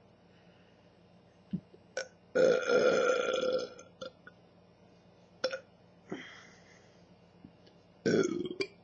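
A woman burping deeply, her burps brought up by fizzy Pepsi. A long loud burp comes about two and a half seconds in and lasts over a second, a fainter one follows around six seconds, and a shorter loud burp comes near the end, with a few short clicks between them.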